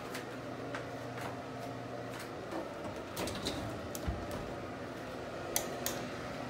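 A closet door being handled and shut: scattered light knocks and rubbing, then two sharp latch clicks near the end, over a steady low hum.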